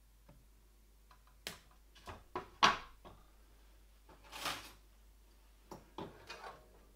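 Small wire cutters trimming the excess stripped end off a thin motor wire: a few sharp clicks and snips, the loudest about two and a half seconds in, then a brief rustle and a few more light taps as the tool is handled and put down.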